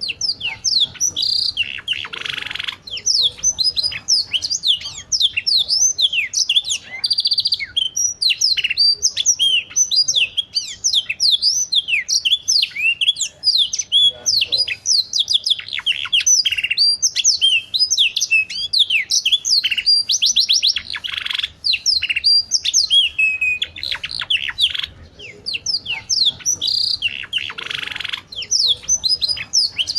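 Domestic canary singing a long, continuous song of rapid chirps and whistled glides, broken by fast rolling trills.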